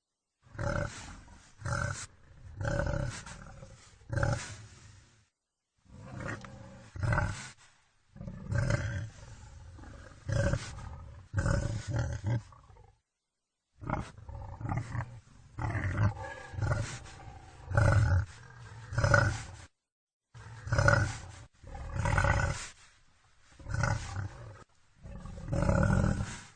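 Wild boar calling in a long series of short, harsh grunts and roars, one after another. The run is broken by a few sudden cuts to dead silence.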